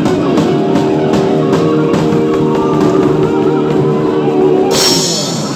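Rock band playing live: guitar chords held over a steady drum beat, with a cymbal crash near the end as the song stops.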